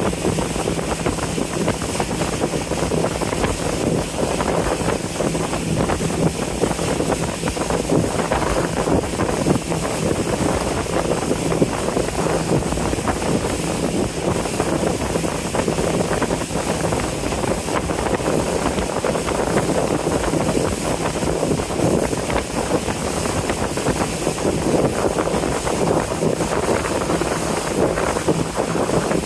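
Boat engine running steadily with a low hum while cruising along the Amazon, mixed with wind buffeting the microphone.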